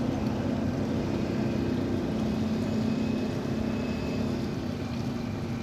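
Pontoon boat's motor running steadily underway: a low, even hum.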